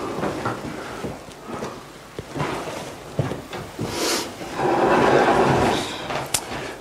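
Handling noises in a small room: rustling of cloth and a book, with light knocks and clicks. A louder, longer rustle comes about five seconds in.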